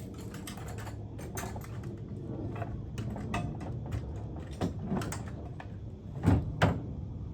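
Hand tools and metal parts clicking and knocking irregularly while bolts are worked loose on a power rake's housing, with two loud knocks close together near the end.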